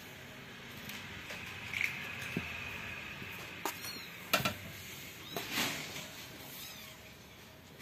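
Young kittens giving faint, thin, high-pitched squeaky mews, mixed with a few sharp knocks and a short scuffle as they move about; the loudest sound is a sharp knock a little past halfway.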